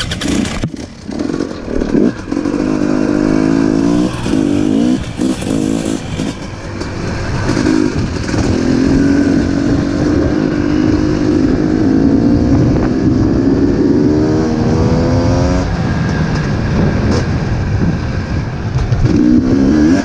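Dirt bike engine pulling away and accelerating, the revs rising and falling as it shifts up through the gears several times, then holding a steady, slowly climbing note at cruising speed before another shift near the end. Wind rumble on the helmet-mounted microphone runs underneath.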